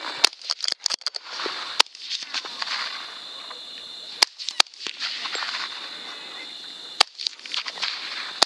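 Sharp clicks and knocks from the rifle and its scope-mounted camera being handled and swung, over a hiss and a steady high insect buzz.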